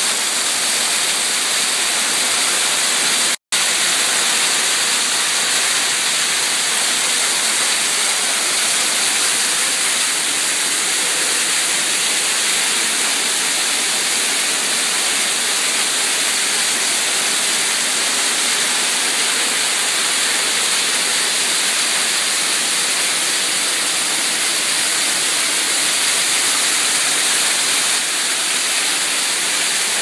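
Man-made garden waterfall pouring steadily: a loud, even hiss of falling and splashing water, heard close up from behind the water curtain. The sound drops out for a split second about three seconds in.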